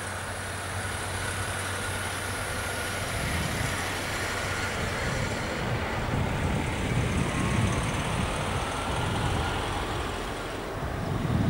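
A Scania 520 lorry's V8 diesel engine heard from a distance as it hauls a heavy low-loader, a low rumble that grows steadily louder as the truck approaches.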